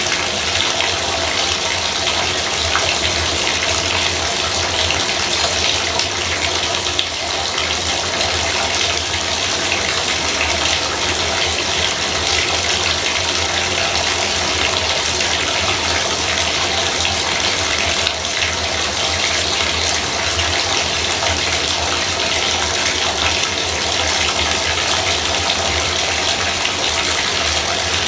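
Bathtub faucet running at full flow, a steady, loud rush of water splashing into the tub, with a low hum underneath.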